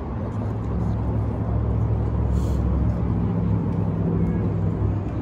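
Low engine rumble of a passing motor vehicle, swelling about a second in and holding steady for a few seconds.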